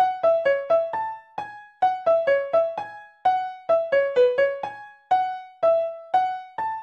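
Music: a simple melody played one note at a time on a keyboard instrument, each note struck and then fading, about two to four notes a second.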